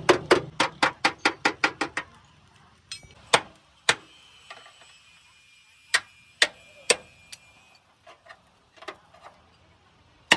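A hammer striking metal: a quick, even run of blows, about six a second, that stops about two seconds in, then a dozen scattered single taps, some with a faint ring.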